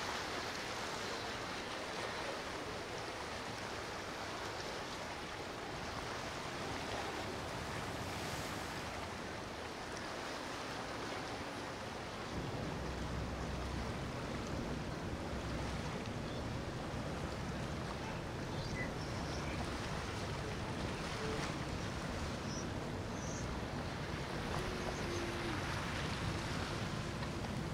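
Passing powerboats throwing spray and wake, a steady rush of water with wind on the microphone. About twelve seconds in, a deeper low rumble comes in under the rush.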